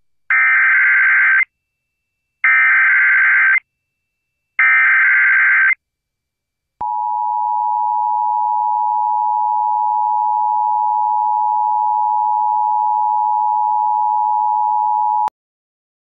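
Emergency Alert System tones: three short screeching bursts of SAME header data, each about a second long with a second's gap between them, then after a pause the steady EAS two-tone attention signal, held for about eight and a half seconds and cutting off sharply. They open an earthquake warning.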